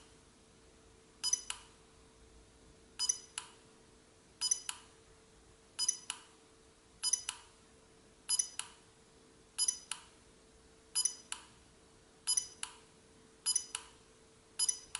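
ChipSHOUTER electromagnetic fault injector firing pulses through its 4 mm injection tip into an STM32 microcontroller. Each firing is a short, ringing double click with a beep-like tone, and they repeat about every 1.3 seconds, each one a glitch attempt on the chip.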